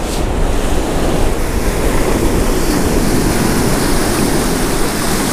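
Ocean surf washing in and out over the shallows, with wind buffeting the microphone.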